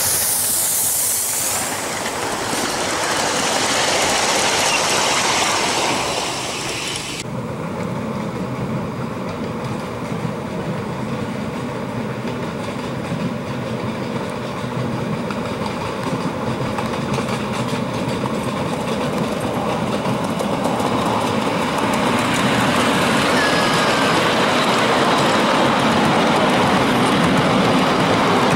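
Ride-on scale model train running on its track, with a hiss at the very start. The sound changes abruptly about seven seconds in and grows louder toward the end.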